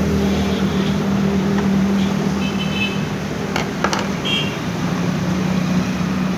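Canon iR 1133 copier running, a steady low mechanical hum with a few sharp clicks a little past the middle.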